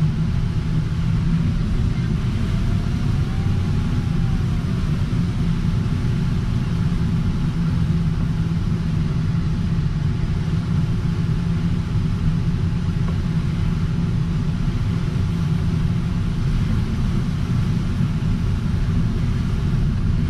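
Steady rush of air over an LS-4 glider's canopy and fuselage, heard inside the cockpit as a low, even rumble with a hiss above it.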